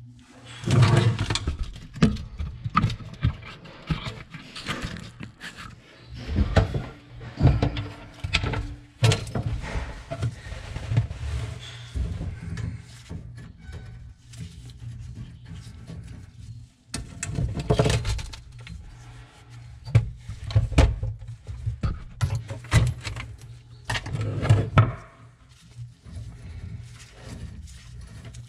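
Knocks, scrapes and clinks of a metal hand tool being worked and turned in a brass pipe fitting. They come in irregular clusters, over a low steady hum.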